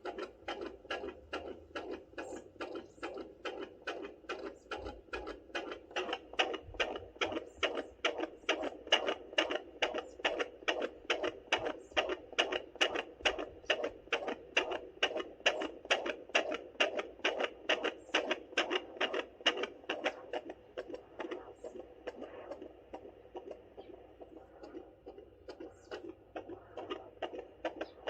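Fetal heartbeat at 32 weeks of pregnancy picked up by a handheld fetal Doppler and played through its speaker: a fast, even pulse of about two to three beats a second. The beats weaken for a few seconds past the middle, then come back stronger.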